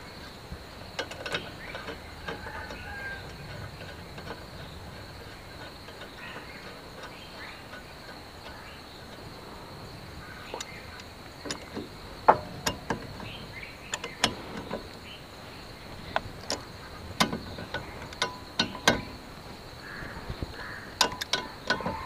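Scattered sharp metallic clicks and taps as the brake caliper's two mounting bolts are run in and tightened with an L-shaped socket wrench, mostly in the second half, over a steady high-pitched insect drone.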